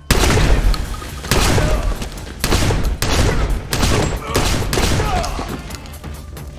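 A gunfight's run of loud gunshots from rifles and a shotgun. It breaks out suddenly, the shots follow each other about every half second, and each one echoes.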